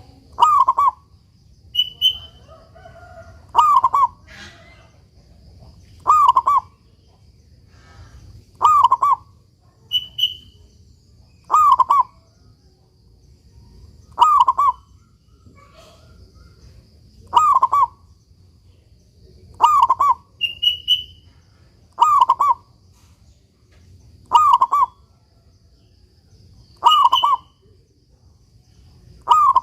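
Zebra dove (perkutut) in full song, repeating its cooing phrase about every two to three seconds, a dozen times in all.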